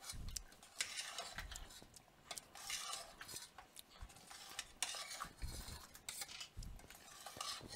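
A spoon stirring thick creamy meatball soup in a stainless steel stockpot, with irregular scrapes and soft knocks against the pot.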